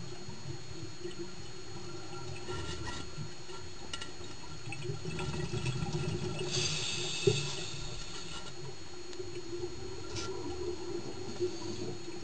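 Scuba divers' exhaled regulator bubbles heard underwater: several bursts of bubbling, the longest from about five to eight and a half seconds in, over a steady faint hum. A sharp click comes about seven seconds in.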